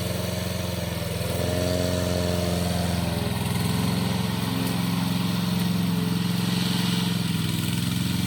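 Engine of a crawler remote-control lawn mower running steadily, its pitch dipping and recovering slightly now and then.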